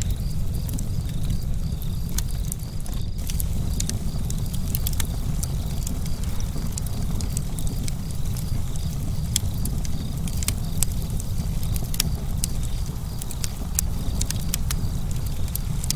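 Campfire crackling: irregular sharp snaps and pops from burning wood over a steady low rumble of the fire.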